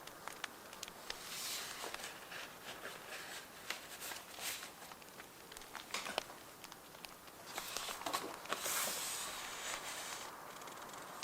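Paper being handled for journaling, rustling and sliding in several longer passes, over a crackling bonfire background with scattered small pops.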